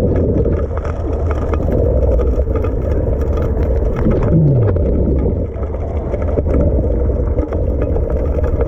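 Small gasoline engine of a 6-inch gold dredge running steadily, with a brief falling tone about four seconds in.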